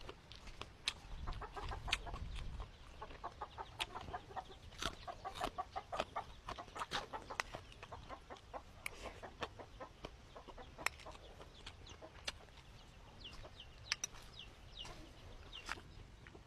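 Chickens clucking in short repeated calls, busiest in the first half, with scattered sharp clicks.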